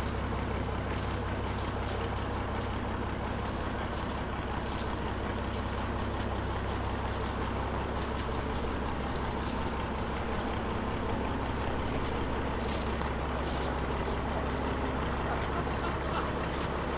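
Heavy vehicle engine running steadily at a constant low pitch, with faint scattered ticks over it.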